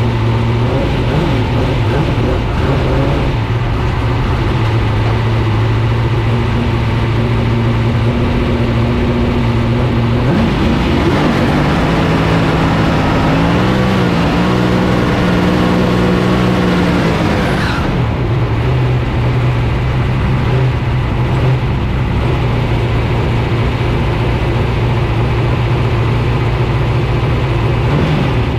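Drag race car's engine idling, heard from inside the cockpit. About ten seconds in it is brought up to higher revs, climbing in steps and held for several seconds, then drops back to idle.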